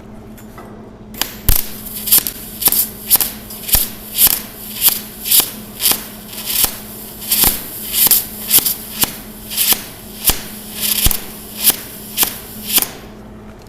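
Wire-feed welder arc popping in sharp, evenly spaced bursts, about two a second, starting about a second in and stopping near the end. The pop, pop, pop is the sign of voltage turned all the way up with the wire feed speed too low: the arc runs hot while the wire barely comes out.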